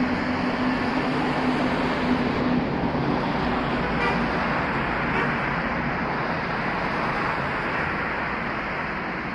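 Steady road traffic noise: the rush of passing cars and engines, with a low engine drone that fades out over the first few seconds.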